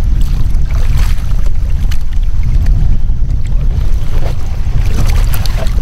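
Heavy wind rumble on the microphone, with water lapping and splashing around a person in the water. A few faint knocks come as a paddle blade is worked into an inflatable paddle float.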